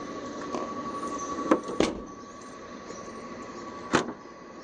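Sharp clicks and knocks from the 2009 Chevy Impala's trunk latch and lid after the remote trunk release: two close together about a second and a half in, then a louder one near the end, over a steady faint high hum.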